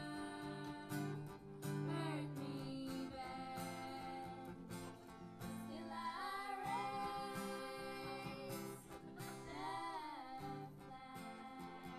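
A voice singing a song over strummed acoustic guitar.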